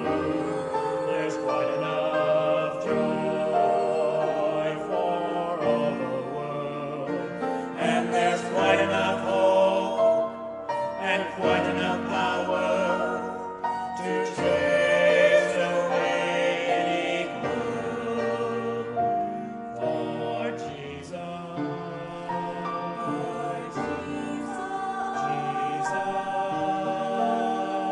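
A church choir quartet of two women and two men singing a hymn-style anthem together in parts.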